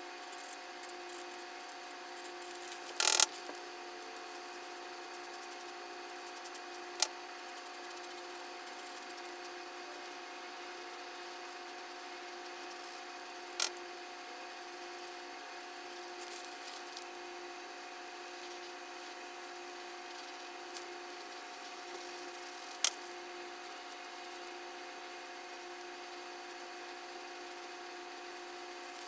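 A steady, even hum with a few fixed pitches, broken by a handful of sharp single clicks: a short cluster a few seconds in, then isolated ones spread far apart.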